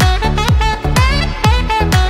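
Upbeat background music with a kick drum about twice a second and a melody over it.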